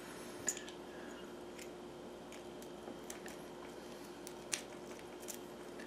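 Scattered light metallic clicks and taps of a key on a key ring being handled and fitted to a trailer-hitch pin lock, the sharpest click about four and a half seconds in, over a faint steady hum.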